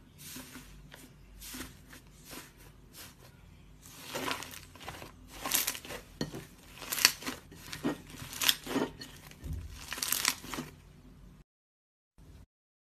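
Slime being squeezed and pressed by hand, giving a string of crackling pops. The pops grow louder from about a third of the way in, then stop shortly before the end.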